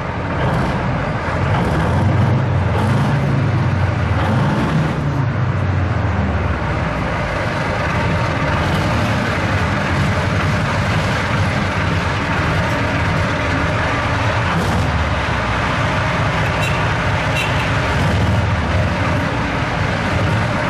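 Soviet IS-2 heavy tank's V12 diesel engine running loud, a deep rumble that swells and dips during the first few seconds and then holds steady.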